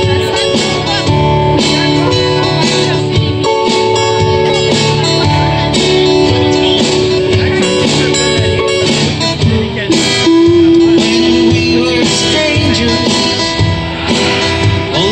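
Two acoustic guitars strummed together in a live duo performance, with a man singing into the microphone over them in places.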